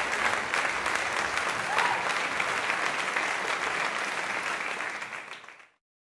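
Crowd applause, dense clapping that fades out about five and a half seconds in.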